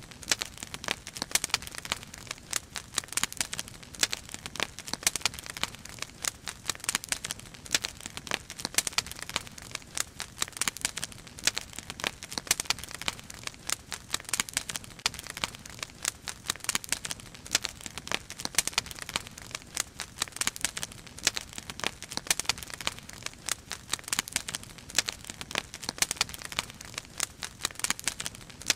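Wood fire crackling, with many irregular sharp pops and snaps as the firewood burns.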